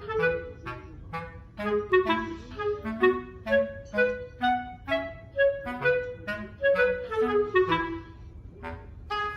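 Background music: a quick melody of short, separate pitched notes, on a woodwind-like instrument.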